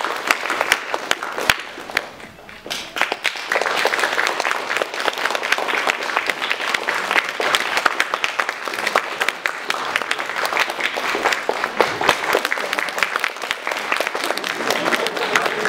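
Audience applauding, thinning out briefly about two seconds in, then picking up again and holding steady.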